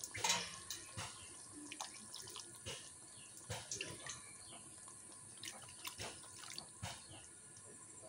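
Spiced potato gravy for egg curry bubbling and spluttering in a pan just after water has been added, giving irregular pops and crackles over a faint hiss. The loudest burst comes just at the start.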